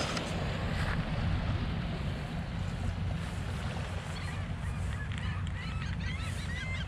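Wind rumbling on the microphone over small waves lapping at the shoreline. From about four seconds in, birds begin calling, a series of short repeated calls that come more often toward the end.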